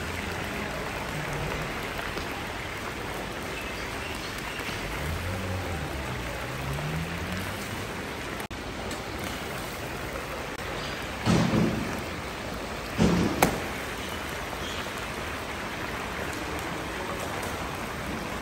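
A huge kazan cauldron of meat and broth for plov at a rolling boil, giving a steady rain-like bubbling and hissing. Two louder knocks break in about 11 and 13 seconds in.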